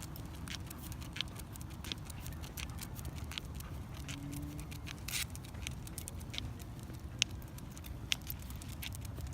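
Bottle cap stuck to the bottom of a pet's foot, clicking against the floor as she steps: an uneven run of sharp clicks, one or two a second, with a longer scrape about five seconds in.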